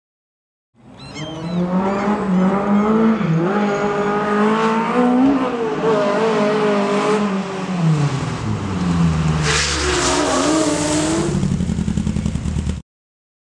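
Rally car's engine revving hard as it is driven around on tarmac, pitch rising and dropping repeatedly with the throttle and gear changes. A short high tyre squeal about a second in and a louder rush of tyre noise near the end as it turns; the sound cuts off abruptly.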